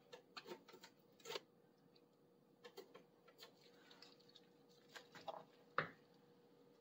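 Faint, scattered rustles and light taps of hands topping pizzas on a parchment-lined baking sheet and squeezing a piping bag of pesto, with one sharper tap near the end.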